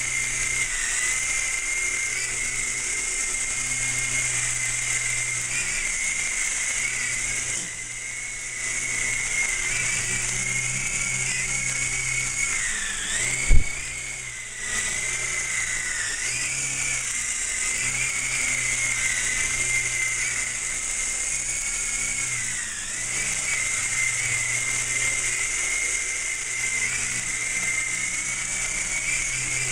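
Small electric radio-controlled Apache model helicopter in flight: a steady high motor-and-rotor whine that wavers and dips in pitch as the throttle changes. A single sharp knock about halfway through is the loudest moment.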